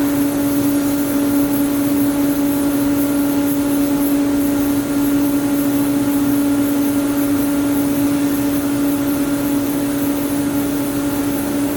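AVEA BM 1600 vertical machining center running under power: a steady machine hum with one strong constant tone and a faint high hiss.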